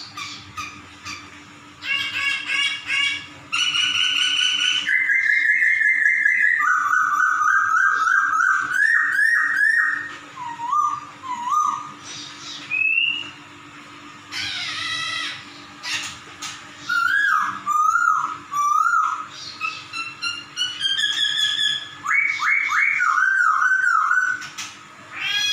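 A caged poksay (laughingthrush) singing loud, clear whistled phrases. Some phrases are quick runs of repeated notes and others slide up and down, with short pauses between them. The song includes cat-like 'meong' notes.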